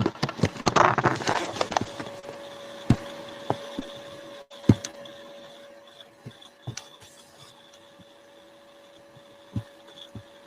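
Scattered sharp clicks and knocks over a faint steady hum with a thin whine, after a rustling noise in the first two seconds.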